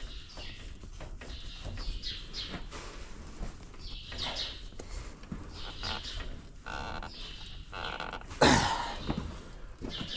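Cattle mooing several times, the loudest moo about eight and a half seconds in, over repeated short high chirps.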